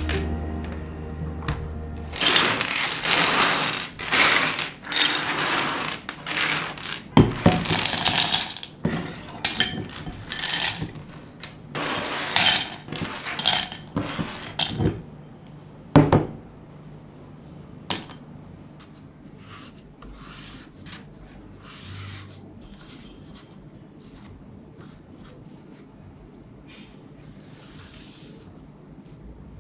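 Hard plastic clattering and rattling from a mechanical keyboard and its keycaps being handled: a run of loud rattling bursts, then scattered clicks and knocks through the second half.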